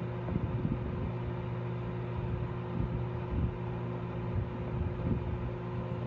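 Microwave oven running with a steady low electrical hum.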